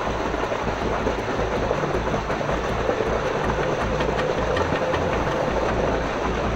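Small electric RC crawler, a 1/18-scale CR-18P Evo, driving with its motor and gearbox whining steadily.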